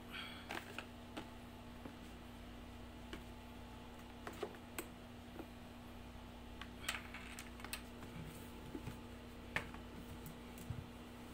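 Faint, irregular light clicks, taps and brief rustles of hands handling a cable, a cardboard box and a portable speaker, over a steady low hum from an air-conditioning unit.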